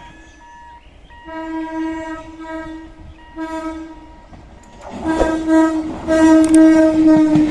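ICF-built EMU local train sounding its horn as it approaches. The horn gives several separate blasts, then is held almost unbroken from about five seconds in, as the rumble and wheel clatter of the oncoming train grow loud.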